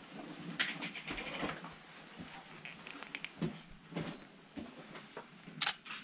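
Reflex-camera shutter clicks, a few short sharp clicks about half a second and five and a half seconds in, with a brief high beep about four seconds in, over faint rustling in a small room.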